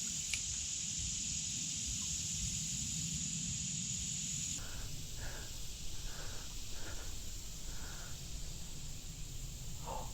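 Insects droning in a steady high-pitched buzz that cuts off suddenly about halfway through, followed by a few faint short sounds.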